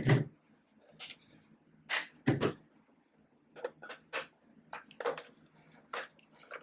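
Irregular light clicks and knocks as a screwdriver works on the plastic housing of a Black and Decker cordless sweeper to take out its screws.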